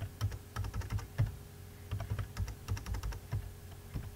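Computer keyboard typing: runs of quick keystrokes, each a sharp click with a low thud, broken by a short pause about a second and a half in.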